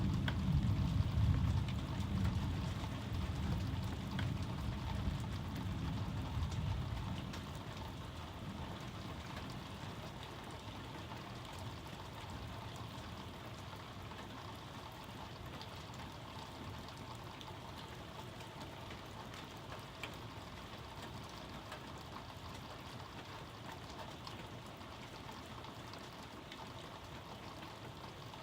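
Thunder rumbling low and loud at the start and fading away over about seven seconds, over steady rain.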